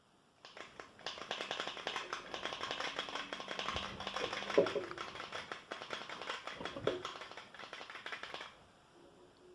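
Rapid, continuous clicking and clattering of LEGO plastic parts, with a couple of heavier knocks partway through.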